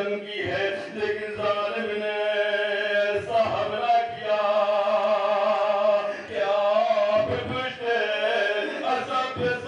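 A man's voice chanting a Muharram mourning recitation into a microphone, amplified over a loudspeaker, in long drawn-out melodic phrases with short breaks about three and six seconds in.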